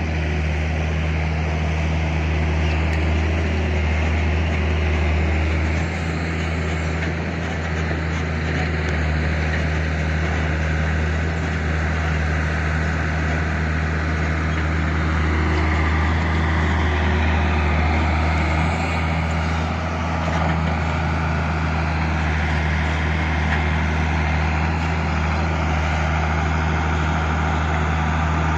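Heavy diesel engines running steadily, a deep constant hum, as a UD Nissan dump truck drives across the dirt toward the excavator to be loaded.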